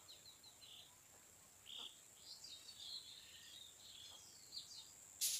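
Faint small-bird chirping: many short, high calls scattered throughout over a steady high-pitched hiss, with one sharp click near the end.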